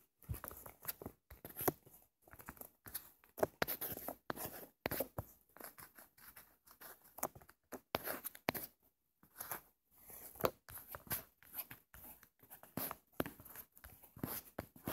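Irregular scratching, rubbing and tapping of fingers on a phone touchscreen while drawing and pinch-zooming, with a short pause about nine seconds in.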